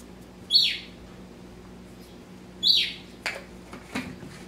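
A bird calling: a short, high chirp that sweeps downward, heard twice about two seconds apart, with a couple of light clicks after the second call.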